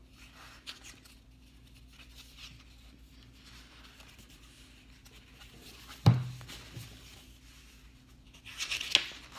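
Pages of a paper picture book being handled and turned, with soft rustling and sliding, and a sharp dull knock about six seconds in, the loudest sound. A louder rustle of the page comes near the end.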